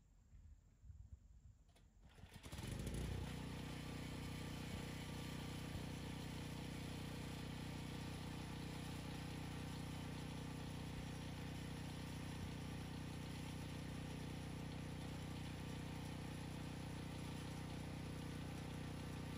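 Small portable gasoline generator being pull-started: a few short tugs, then the engine catches about two and a half seconds in and settles into a steady, even run.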